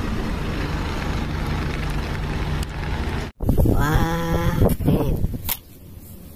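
A red London single-deck bus's engine running steadily as it drives past, with a low drone that cuts off abruptly about three seconds in. A man's voice follows briefly, then a single click.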